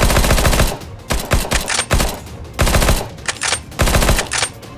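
Automatic gunfire sound effect: about five short bursts of rapid shots, the first and longest at the start.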